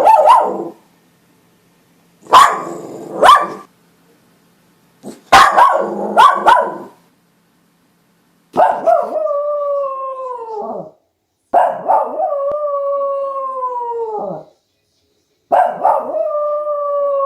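West Highland white terrier barking in short sharp bursts, then howling: three long, steady howls of two to three seconds each, each dropping in pitch as it ends.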